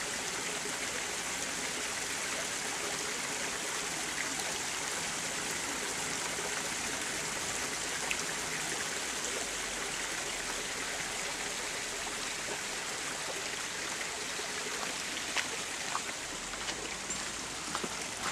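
Small creek running with a steady, even rush of water, with a few faint clicks near the end.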